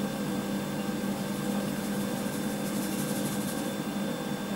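Thermomix food processor's motor running with a steady hum.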